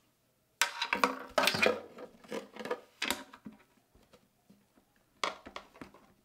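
Plastic RC jet fuel tank being handled as its fuel line plumbing is pushed back in and the fitting seated in the tank's neck: hollow plastic knocks, tubing rustle and small clicks, in a burst of about two and a half seconds, then a few more knocks near the end.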